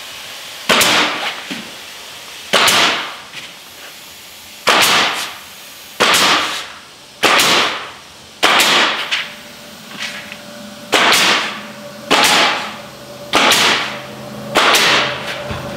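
Bostitch pneumatic coil nailer firing galvanized nails through the foam buck into the wood framing: about ten sharp shots, one every one to two seconds, each with a short fading tail.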